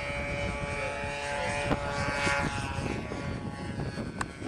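Radio-controlled model airplane's engine running as the plane flies past, its pitch rising and falling as it passes.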